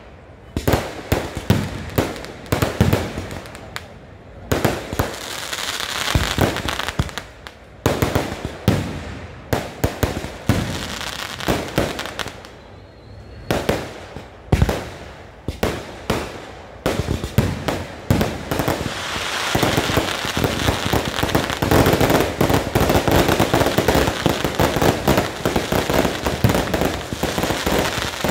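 Kerala festival fireworks (vedikkettu) going off: loud bangs of shells and firecrackers in uneven volleys at first, then from about two-thirds of the way in a dense, continuous barrage of explosions.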